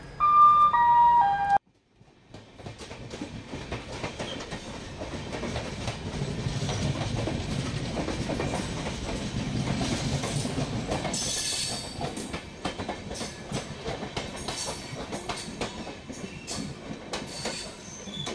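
A three-note station announcement chime stepping down in pitch, then, after a short break, a passenger train running with the rumble and clatter of its wheels over the rails. About eleven seconds in there is a brief high-pitched wheel squeal.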